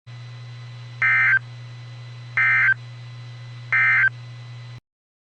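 Emergency Alert System end-of-message tones: three short, identical bursts of SAME digital data squawks, spaced about a second apart, over a steady low hum.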